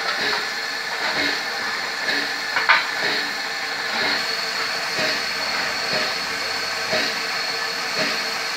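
USATC S160 2-8-0 steam locomotive starting away slowly, steam hissing steadily from around the cylinders with soft exhaust beats about once a second. A loud knock sounds about two and a half seconds in.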